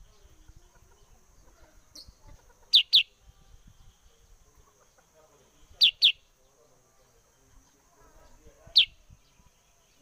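Black-headed bulbul (kutilang sutra) calling: short, sharp notes that slur downward. There are two quick notes about three seconds in, two more about six seconds in, and a single one near the end.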